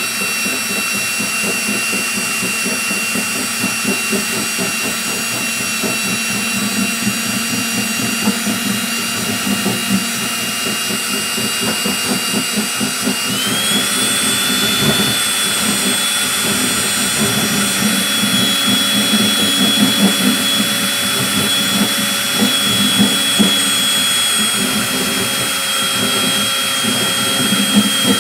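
Handheld rotary tool with a small round burr grinding a V-groove along a crack in a plastic lawnmower fuel tank: a steady high motor whine over rough grinding, the whine stepping up in pitch about halfway through.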